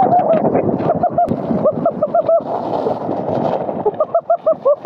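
Plastic sled sliding fast over icy snow with a steady scraping rush, which thins out about four seconds in as the sled slows. Over it, a person gives runs of short rhythmic cries, four in quick succession and then five more near the end.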